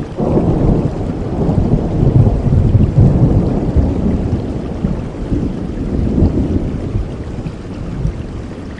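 Rain falling steadily under a long, rolling rumble of thunder that swells just after the start, surges again later and fades away near the end.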